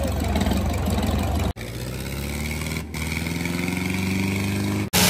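Tractor diesel engine running hard, heard in short clips joined by abrupt cuts; from about a second and a half in, its pitch climbs steadily as it revs up, and it cuts off suddenly near the end.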